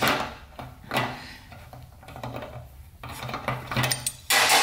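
Pipe wrench clinking and scraping on a pressed-in fitting as it is twisted and pulled out of an aluminium water pump housing, in a few separate metallic knocks and rasps. A louder metallic clank comes near the end.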